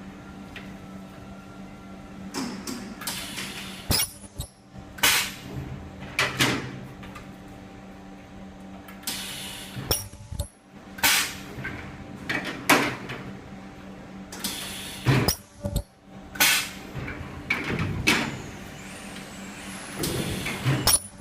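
Ultrasonic plastic welding machine cycling: repeated short bursts of pneumatic air hiss, one every second or two, over a steady machine hum.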